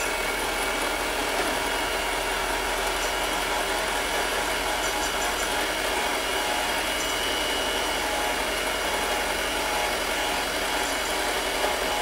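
Handheld electric mixer running steadily, its beaters whipping egg yolks and milk in a glass measuring cup for a custard.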